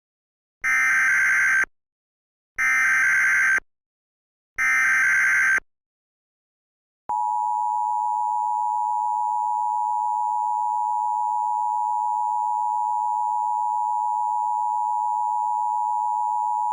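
Emergency Alert System header: three one-second bursts of screeching SAME data tones, a second apart, then the steady two-tone EAS attention signal (853 and 960 Hz) starts about seven seconds in and holds.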